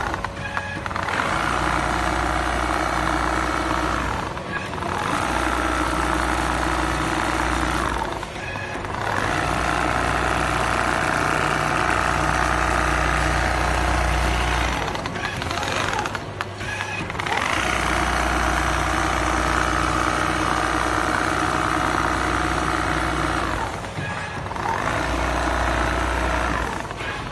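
Industrial computerized quilting sewing machine with a rotary head stitching a feather duvet: a steady motor hum and needle running that dips briefly about five times, where the head slows or pauses.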